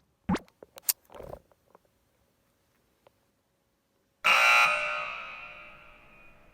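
A few short clicks, then after a silent pause a sudden bright ringing tone, like an alarm or buzzer, that fades away over about two seconds.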